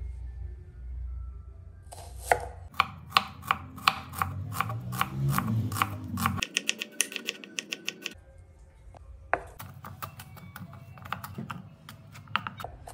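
Kitchen knife striking a thick wooden chopping board as it slices a red onion and then chops garlic: runs of quick, sharp taps that speed up, a short pause about halfway, then more taps.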